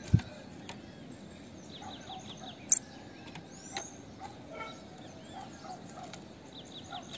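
Female bananaquit calling: faint, thin high chirps, with a quick run of about six short descending notes about two seconds in. A sharp low thump right at the start and a loud click a few seconds in stand out above the calls.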